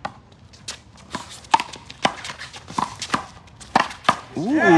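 Handball rally: the ball slapped by gloved hands and smacking off the wall, a quick, irregular series of about a dozen sharp smacks roughly every third to half a second. Near the end a loud "ooh" from the onlookers begins.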